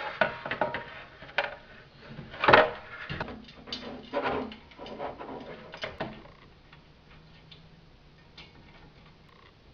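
Hand handling of the plastic covers and parts of a Schwinn 430 elliptical during assembly: a run of clicks, knocks and scrapes, with one loud knock about two and a half seconds in. From about six seconds on there are only faint ticks.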